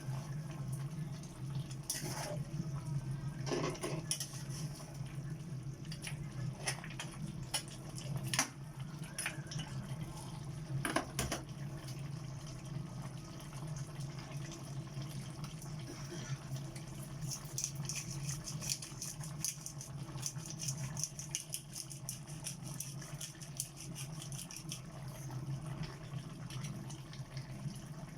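Liquid sounds over a steady low hum, with scattered clicks and knocks in the first half and a stretch of fine crackling in the second half.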